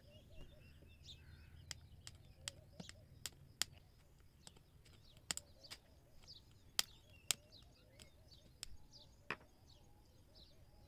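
Spring-loaded side cutters snipping the excess component leads off a soldered circuit board: about a dozen sharp, irregularly spaced snips.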